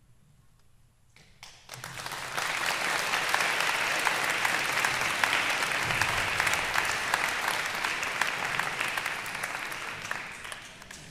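Audience applauding. After about a second of quiet, clapping breaks out, holds steady, and tapers off near the end.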